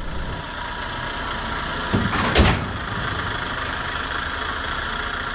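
Truck's diesel engine running steadily at idle while the tractor unit moves slowly. About two seconds in there is a short, loud noise, a thump with a rush of sound.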